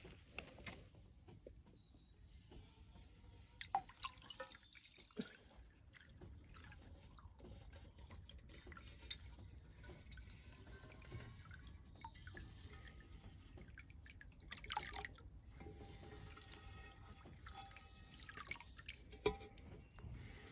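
Water dripping and splashing from the rim of a metal tub into a small pot of water as the tub is tilted, with a few sharp knocks and splashes.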